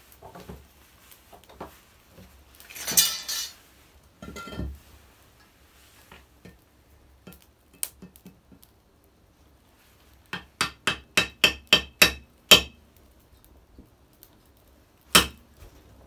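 Hammer striking a cold chisel set on a hollow concrete block, chiselling to split the block in half: a quick run of about nine sharp, clinking strikes that grow louder, then one more strike a few seconds later. Before the strikes, a few knocks and a scraping rustle of tools and blocks being handled.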